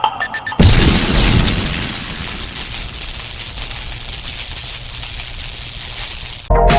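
An explosion-like boom: a few short clicks, then a sudden loud burst of noise about half a second in that slowly dies away over about six seconds and cuts off abruptly.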